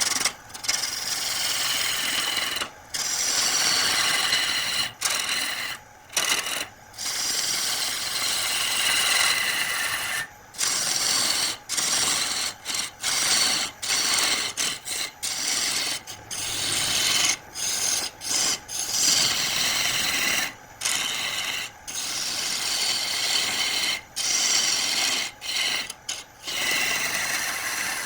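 A turning tool scraping and cutting into wood spinning on a lathe, in passes broken by short gaps every second or two as the tool comes off the wood.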